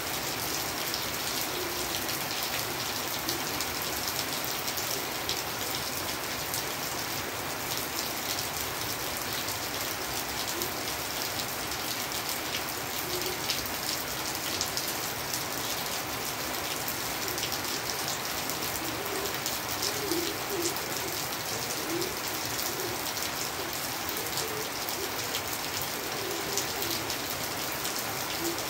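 Steady rain falling on a surface, an even hiss of drops. Faint low bird calls come through now and then, mostly in the second half.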